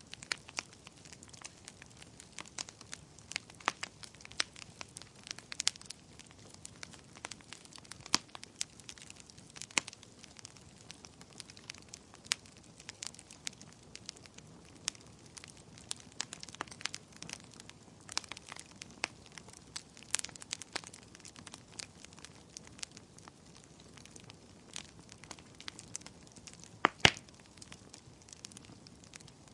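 Wood fire crackling: a quiet bed of burning with frequent irregular sharp pops and snaps, the loudest a double pop about 27 seconds in.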